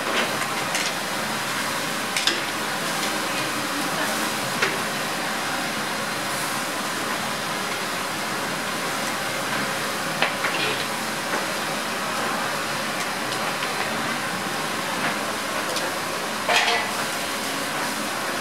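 Pork ribs sizzling on a hot round grill grate, a steady hiss, with a few sharp metallic clicks of steel tongs against the grate and ribs, the loudest near the end.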